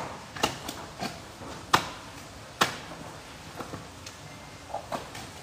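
Meat cleaver chopping through a whole fish onto a cutting board: a string of sharp, irregular chops, the two loudest near the middle.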